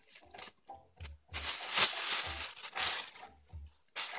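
Thin plastic shopping bag rustling and crinkling in irregular bursts as a pair of sneakers is pulled out of it, loudest in the middle.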